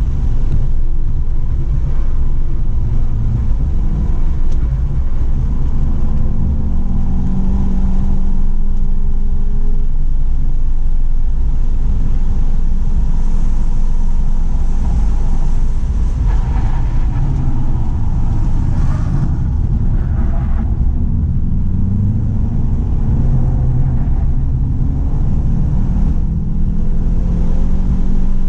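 2017 Volkswagen GTI's turbocharged 2.0-litre four-cylinder running at speed, heard over heavy road and wind rumble; the engine note climbs under acceleration twice, about a quarter of the way in and again near the end.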